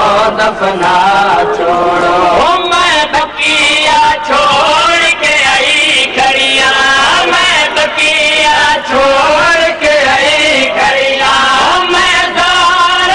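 Male voice chanting a noha, a Shia lament, in long melodic lines that bend up and down without a break.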